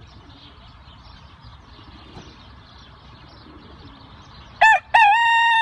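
Faint outdoor background, then about four and a half seconds in a rooster starts crowing loudly: a short first note followed by a long held one.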